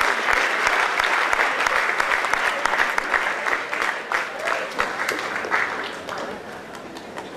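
Crowd of people applauding, a dense patter of many hands clapping that thins out and fades toward the end.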